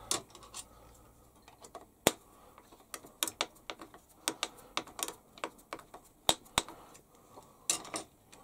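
Irregular light clicks and knocks of metal parts being handled and unclamped on a drill press, as an aluminium toothed pulley is taken off. The sharpest knocks come about two seconds in and twice just after six seconds.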